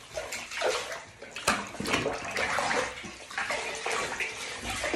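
Water poured from a plastic cup over a wet puppy's coat, splashing and running off into a bathtub, in uneven splashes.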